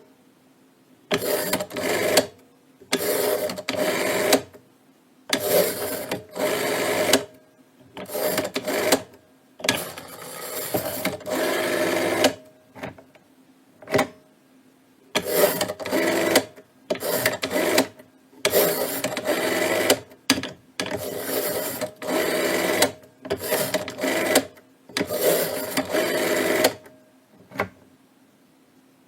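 Keypad buttons pressed in fast runs of clicks, in bursts of about half a second to two seconds with short pauses between them, and a single lone press near the middle.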